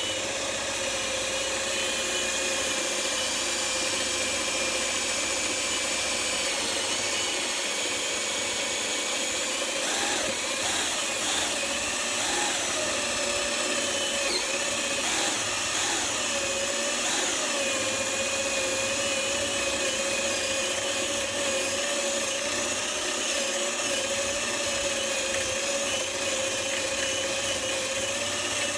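Electric drill boring into the wooden edge of a door to cut the mortise for a sash lock, running steadily without a break. About a third of the way through its pitch wavers several times as the bit is worked back and forth and loads up in the wood.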